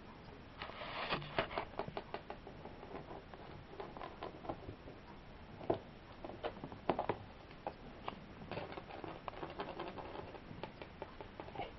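Kittens scuffling and pouncing on a carpet around a wand toy: irregular light taps, scratches and rustles, with a cluster of sharper clicks about a second in and a few louder knocks around six to seven seconds in.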